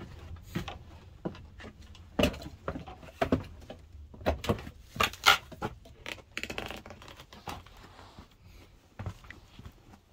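Irregular footsteps, knocks and clicks of someone walking and handling things, with a short scraping sound a little past the middle.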